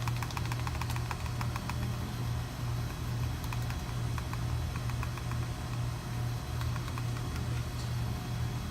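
A steady low engine-like hum with a slight pulse, with faint rapid clicking in the first second or so.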